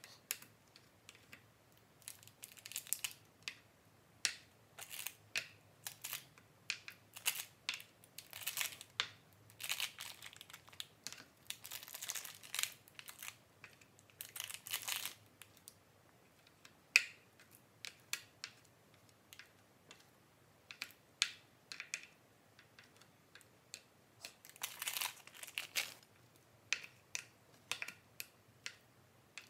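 Small fork scraping and scooping raw minced meat out of a plastic tub and spreading it around a plastic feeding bowl: an irregular string of short scrapes, squelches and light clicks.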